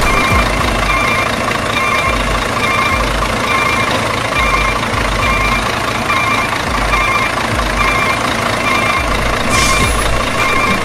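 RC dump truck's sound module playing a reversing beeper, a two-tone beep repeating a little faster than once a second over a steady engine hum. A short hiss like an air-brake release comes near the end.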